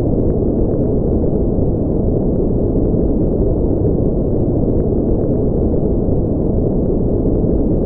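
Steady, unchanging white-noise track for sleep, deep and muffled rather than hissy, with no rhythm or events in it.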